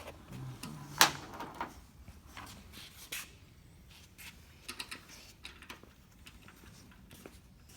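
Scattered clicks and knocks of small parts and tools being handled, with one sharp knock about a second in and a cluster of lighter clicks a few seconds later.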